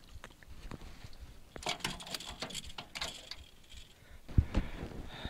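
Splashing and rattling in an aluminum jon boat as a small blue catfish is reeled up and swung aboard, with a single loud thump a little after four seconds in.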